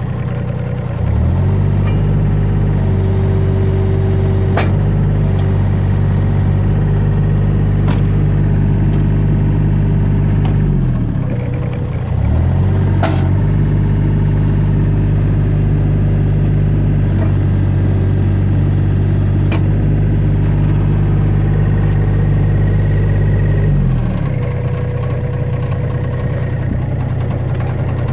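John Deere 35D mini excavator's Yanmar diesel engine idling, then brought up to high speed and held there steady for about ten seconds, twice, dropping back to idle in between and at the end. A few sharp clicks sound over it.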